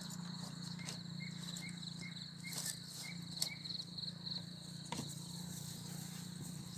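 Crickets chirping in a steady pulsing trill, with a second shorter chirp repeating about twice a second and a few light clicks. A low steady hum runs underneath.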